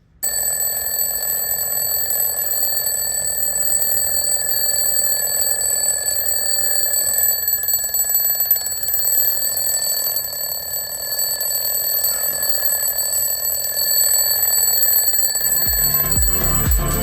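The restored alarm clock's bell ringing continuously, a steady high-pitched ring that starts suddenly and runs for about sixteen seconds before stopping.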